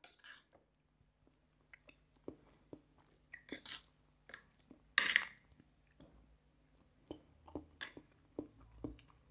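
A person eating khichdi with a spoon, picked up close by a clip-on microphone: soft chewing and mouth noises with small scattered clicks, and one louder short noise about five seconds in.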